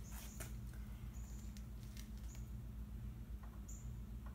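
Faint light clicks and a few brief high squeaks from a hand tool being handled and set against a metal cooler bracket, over a steady low hum.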